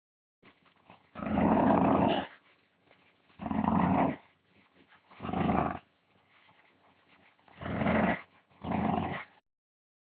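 A dog growling in five separate low, rough growls, each lasting about half a second to a second, with short pauses between them; the last two come close together near the end.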